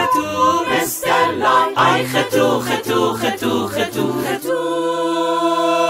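Singing in quick syllables that settles into one long held note about four and a half seconds in.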